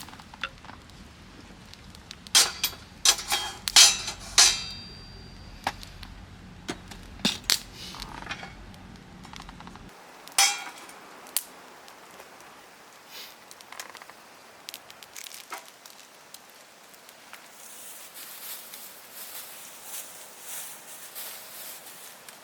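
A series of sharp clinks and knocks of hard objects being handled, bunched in the first few seconds, one of them ringing briefly, then growing sparse.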